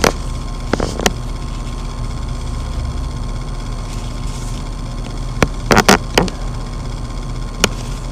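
Handling noise from a handmade toy monster truck moved about right at the microphone: sharp clicks and knocks about a second in, a quick cluster around six seconds, and one more near the end, over a steady background hum.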